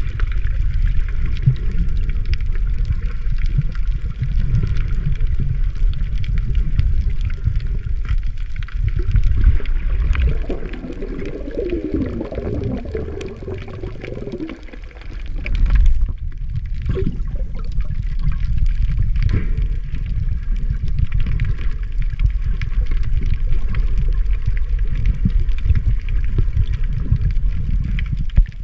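Underwater sound picked up by a submerged camera: a steady low rumble of moving water and surge. A wavering gurgle runs from about ten to fourteen seconds in, and a single thump comes about sixteen seconds in.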